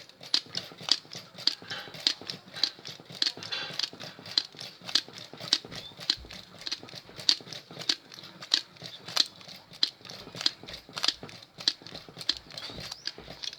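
Sharp, irregular clicks and ticks, about two a second, from copper wire being wound by hand onto a power drill's armature.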